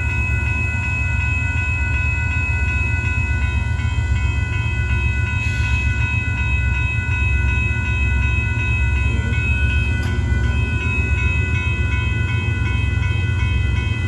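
Railroad grade-crossing warning bell ringing with an even, repeating stroke, over the steady low rumble of a train at the crossing.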